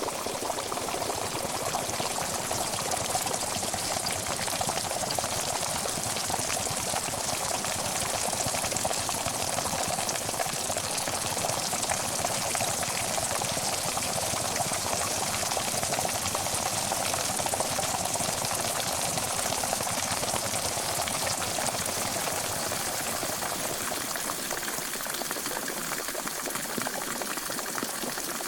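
Pot of water at a steady rolling boil, a continuous dense bubbling and crackle.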